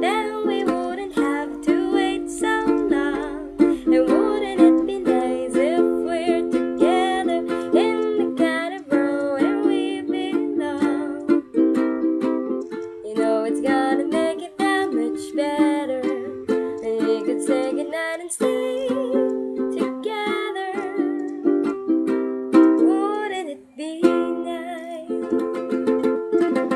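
Ukulele strummed in a steady chord rhythm while a woman sings the melody over it.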